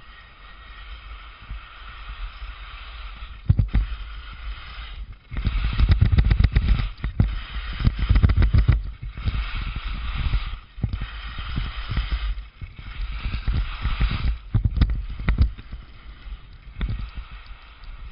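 Skis hissing and scraping over the snow during a downhill run, with many short sharp scrapes as the edges bite. From about five seconds in, wind buffets the microphone in heavy uneven gusts.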